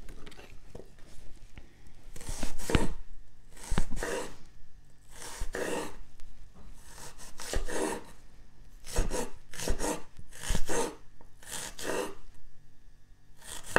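Chef's knife thinly slicing a red onion on a wooden cutting board: repeated rasping cuts through the onion, some ending in a knock of the blade on the board, coming in groups about every second.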